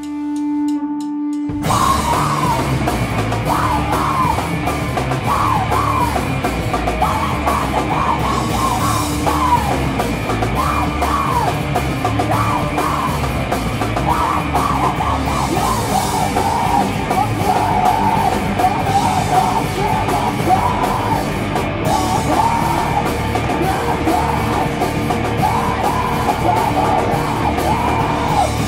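Live heavy rock band: a held guitar tone rings for about a second and a half, then the full band comes in loud with distorted guitars, drums and a screamed vocal.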